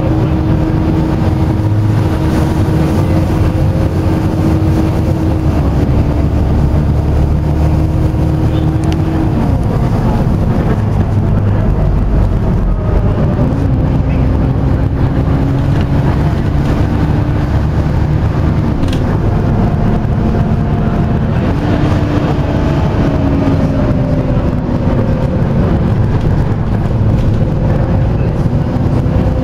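Volvo B7TL double-decker bus running on its 7-litre Volvo D7C diesel, with a loud cooling fan whining over the engine. The whine holds a steady pitch, then drops and comes back up in steps several times.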